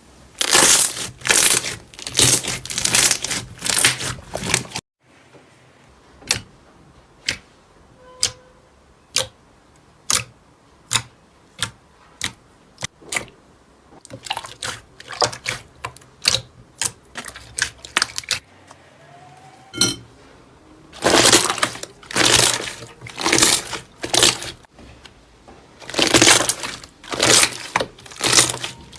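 Slime being squeezed and pressed by hand: bursts of wet crackling and popping, with a stretch of single sharp pops about once a second in the middle.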